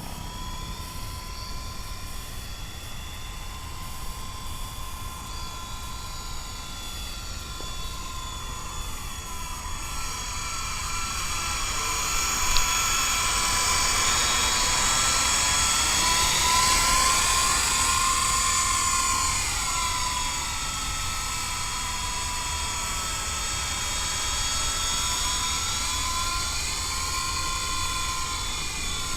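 Small electric RC helicopter (MJX F45) in flight, its motor and rotor whining steadily, the pitch rising and falling as it manoeuvres and growing louder in the middle as it comes closer. A low rumble of strong wind on the microphone runs underneath.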